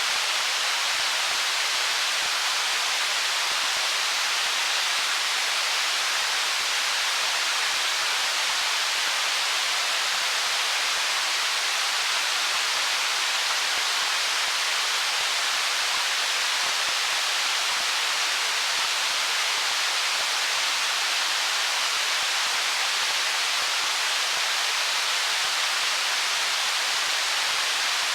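Stream water running over stones: a steady, even rush of water noise, mostly in the upper range with little low rumble, never rising or falling.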